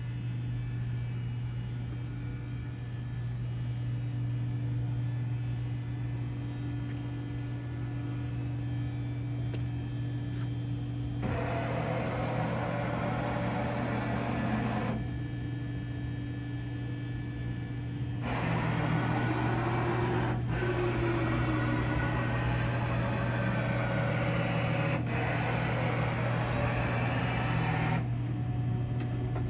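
Southwestern Industries Trak TRL 1630SX CNC lathe running with a steady electrical hum. About 11 seconds in a louder whirring rises over it for a few seconds, and it comes back for a longer stretch later, with a pitch that wavers up and down.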